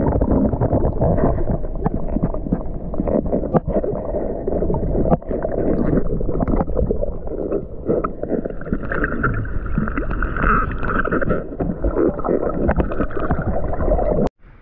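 Wind buffeting the microphone: a loud, rough rumble with irregular thumps, cut off abruptly near the end.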